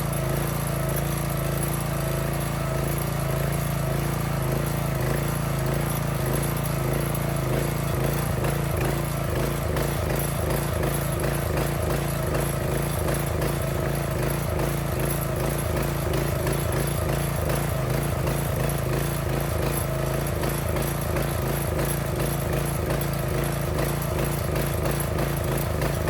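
Small gasoline engine of a log splitter running steadily, then running unevenly with a pulsing, choppy beat from about eight seconds in.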